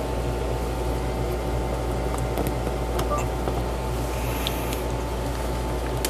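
Steady mains hum and hiss from a TDA2030 amplifier board played through a Realistic two-way speaker, its input cable plugged in with no signal playing yet. A few faint ticks can be heard.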